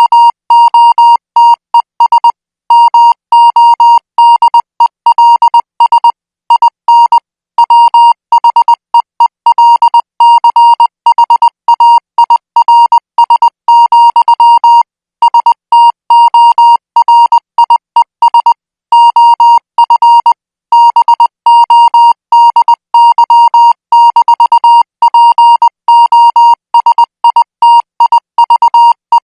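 Morse code sent at 20 words per minute: a single steady tone keyed on and off in short and long marks, with slightly longer pauses every few seconds between groups.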